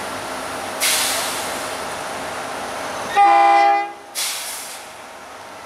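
Pikes Peak Cog Railway diesel railcar No. 24 running under a steady hum, with a sharp hiss of air about a second in. A little past the middle it gives one horn blast of several tones, about a second long, followed at once by another short hiss of air.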